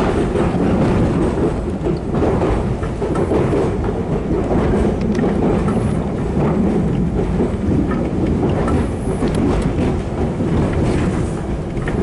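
Class 483 electric train (converted 1938 London Underground tube stock) running along the track, heard from inside the carriage: a steady low rumble of wheels on rails with occasional clicks.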